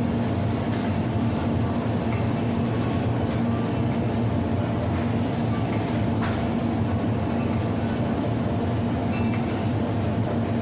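Department store interior ambience: a steady hum of ventilation and shop-floor din, with a couple of brief clicks or clatters.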